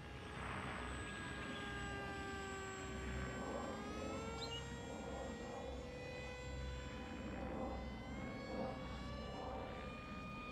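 Brushless electric motor and pusher propeller of a small RC model plane flying overhead. Its whine sinks slightly, rises with throttle about four seconds in, and edges up again near eight seconds. The plane is a little noisy, which the builder traces to his motor setup: a stand-in 2830 motor of higher KV turning a finer-pitch 7x4 prop.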